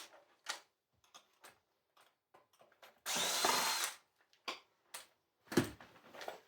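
A cordless drill-driver spins for about a second, about three seconds in, undoing a hood screw, with a steady high whine in it. Around it come scattered light clicks and knocks of screws and parts being handled.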